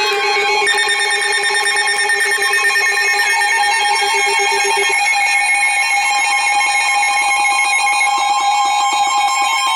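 Several NOAA weather radios sounding their alert alarms at once for a tornado warning: loud, overlapping steady electronic tones and a warbling beep. One of the tones stops about halfway through.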